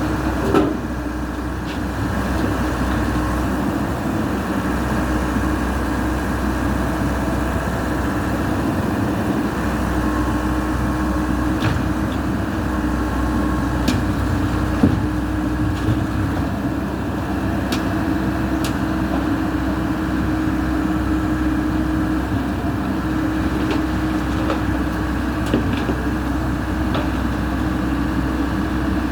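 Backhoe's diesel engine running steadily, with a few sharp metal knocks now and then.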